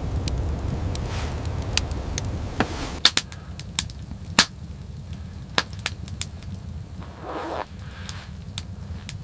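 Irregular sharp knocks and clicks over a low rumble that drops away about three seconds in.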